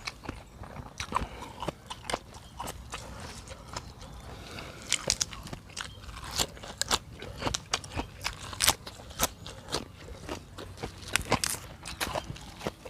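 A person eating: chewing and crunching food, with many sharp, irregular clicks and smacks.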